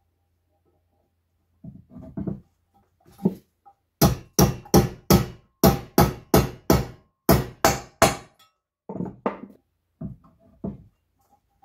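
Mallet blows on a valve-guide installer tool, driving frozen valve guides into a heated cylinder head. A few lighter taps come first, then a steady run of about three sharp blows a second, then lighter blows toward the end.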